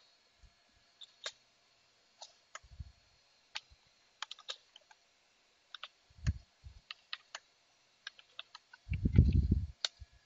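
Computer keyboard typing: irregular keystroke clicks as a terminal command is typed in, with a few low muffled thumps, the loudest about nine seconds in.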